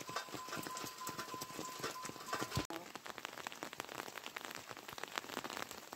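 Steady rain, with many separate drops striking close by.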